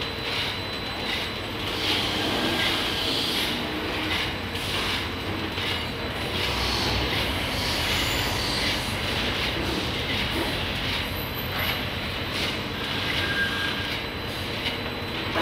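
Rotating stainless-steel drum of an oil dryer (de-oiling machine) turning while fried snack sticks tumble inside it and spill out onto a steel tray: a steady, dense rattling clatter.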